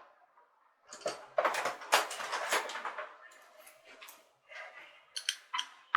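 Metal engine parts being handled on a workbench: a stretch of rough clattering and scraping, then a few sharp metallic clicks and knocks near the end.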